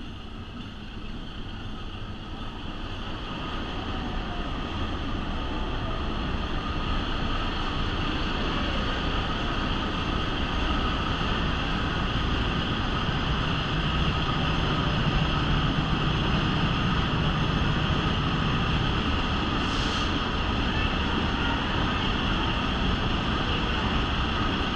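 Diesel-hauled passenger train climbing a grade, heard from an open-air car: a steady mix of locomotive engine drone and wheels on rails. It grows louder over the first several seconds as the car enters a tunnel, then holds steady, closed in by the tunnel walls.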